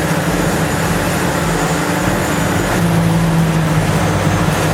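Large diesel engine of heavy earthmoving machinery running steadily under load, its note shifting slightly about three seconds in.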